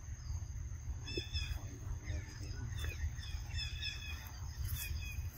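Outdoor forest ambience: two short bunches of high chirping calls, about a second in and again near four seconds, over a steady thin high insect whine and a low rumble on the microphone.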